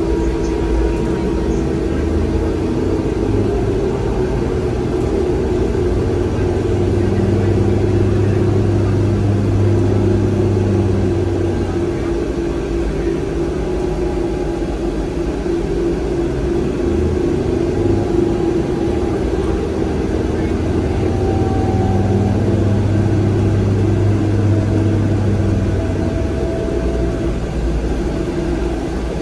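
Inside a New Flyer DE60LFR articulated diesel-electric hybrid bus under way: its Cummins ISL six-cylinder diesel and Allison EP50 hybrid drive running with a steady rumble and hum. A deeper drone swells in twice, about six and about twenty seconds in, each lasting some five or six seconds.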